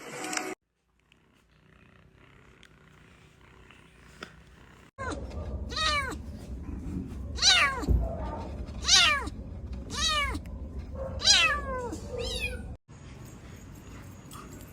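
A cat meowing about six times, starting about five seconds in: high meows, each sliding down in pitch, roughly one a second, over a low steady rumble.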